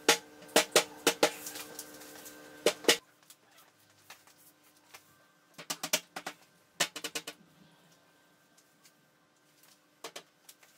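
A fist pounding on the particleboard top panel of an IKEA Malm chest of drawers, knocking it down onto the frame: a quick run of sharp knocks for the first three seconds, then two short clusters of knocks around the middle and one or two more near the end.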